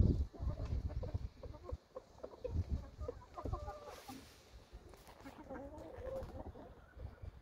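Flock of chickens clucking in short, soft calls while pecking at feed, with low rumbles near the start and about two and a half seconds in.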